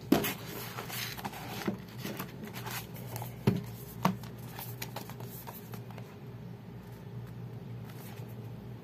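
A paperboard card-game box being picked up, slid and turned over on a wooden table, with a few sharp taps and knocks of the cardboard in the first half, over a faint steady low hum.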